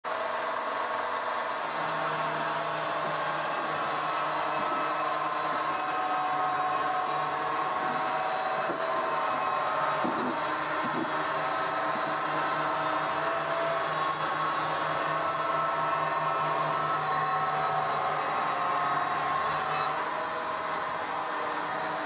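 Horizontal band sawmill running, its band blade sawing lengthwise through a large log with a steady whine and hiss. A low hum joins about two seconds in and stops shortly before the end.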